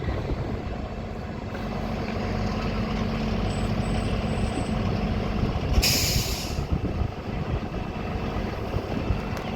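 Heavy truck engine running steadily, with one short, sharp air-brake hiss about six seconds in.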